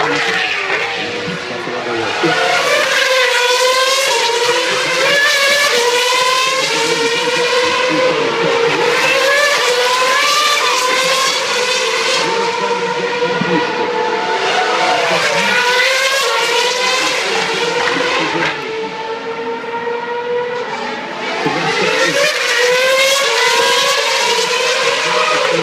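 Formula 1 car engines running at high revs, climbing in pitch through a series of quick upshifts and falling again as the cars brake and pass. The sound is loud almost throughout, easing briefly near the end before building again.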